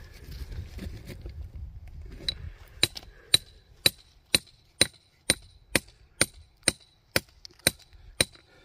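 A steel rock hammer striking rock in a steady series of about thirteen sharp blows, roughly two a second, each with a brief metallic ring. The blows start about two seconds in and stop near the end.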